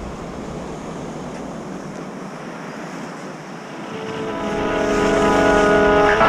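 Steady wind and ocean surf noise, with background guitar music fading in about four seconds in and growing louder.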